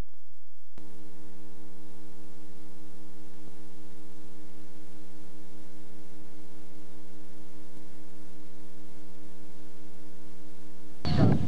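Steady electrical mains hum, a stack of even tones, from a VCR playing the blank lead-in of a VHS tape; it starts abruptly about a second in. Near the end it gives way to a sudden burst of louder, noisy recorded sound as the tape's footage begins.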